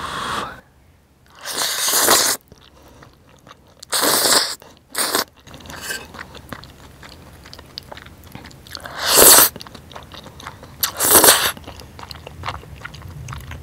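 A person slurping up spicy instant ramyeon noodles in about five loud, short slurps, with wet chewing in between.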